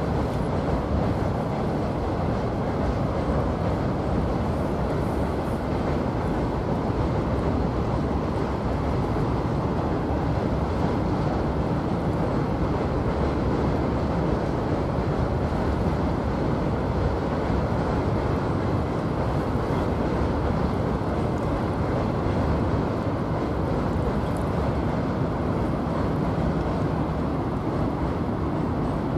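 Freight train rolling past, a steady rumble of wagons on the rails.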